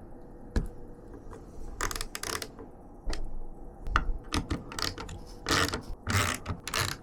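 Mounting screws of a CPU liquid cooler's pump block being driven down onto the processor: irregular clicks and short scraping, grinding sounds of the screwdriver and screw threads as they are tightened.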